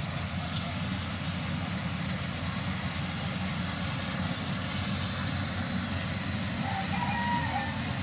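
A motor running at a steady pitch: an even mechanical hum with a thin high whine above it.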